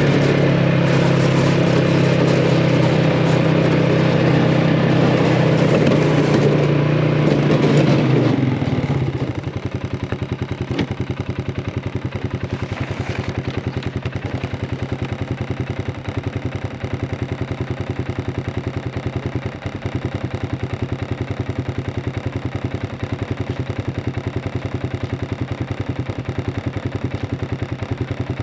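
Small vehicle engine running loudly, then about nine seconds in dropping to a quieter, steady idle with an even pulse.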